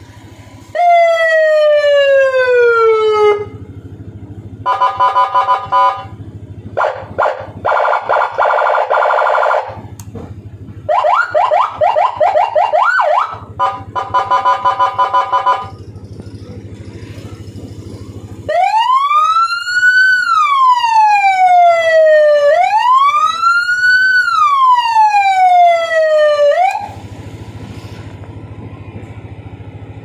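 Electronic police-escort motorcycle siren cycled through its tones. It opens with a falling sweep, then gives pulsed horn-like blasts, a run of fast rising yelps, and near the end two long wails that rise and fall.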